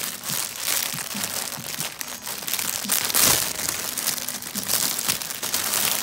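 Clear plastic poly bag crinkling as the shirt inside it is handled. The crackle runs on throughout and is loudest about halfway through.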